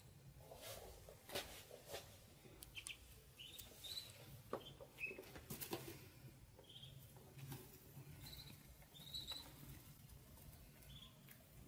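Ducklings peeping softly: about ten short, high peeps spread out with gaps, over light rustling and clicking of hay.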